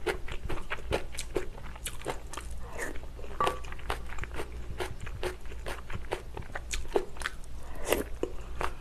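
Close-miked chewing of crunchy food, crisp wet crunches at about two or three a second.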